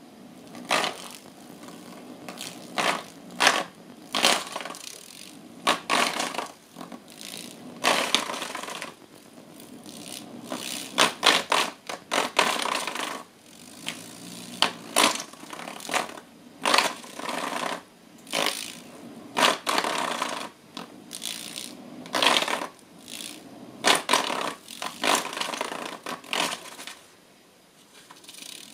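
Irregular clatter of clicks and scrapes as a Bengal cat paws and knocks at a small ball-shaped electric fan on its wire stand.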